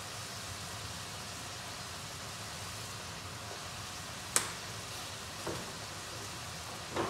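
A spiced sauce sizzling steadily in a wok, with one sharp click a little over four seconds in.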